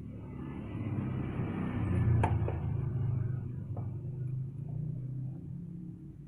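A car engine's low rumble swells up, holds, then fades away, with one sharp click about two seconds in.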